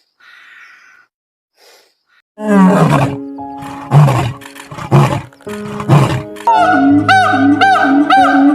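A big cat roaring: four loud calls about a second apart, after a faint start, with background music that grows louder near the end.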